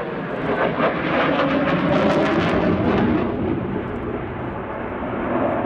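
Jet noise from a Sukhoi Su-27 fighter's twin Saturn AL-31F afterburning turbofans as it manoeuvres in flight. It is loudest about one to three seconds in, eases slightly, then builds again near the end.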